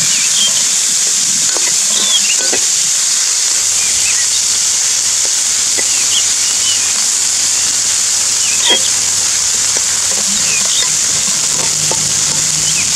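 Chopped onion, green chilli and tomato sizzling steadily in hot oil in an aluminium kadhai, stirred with a slotted metal spatula that scrapes and knocks against the pan a few times.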